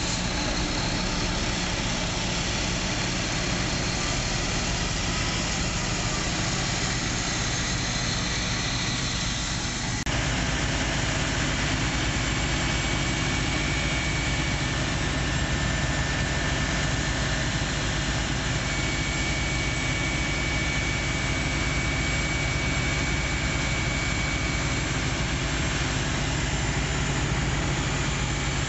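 Fire truck's diesel engine running steadily with a low hum and a faint high whine. The sound changes abruptly about ten seconds in.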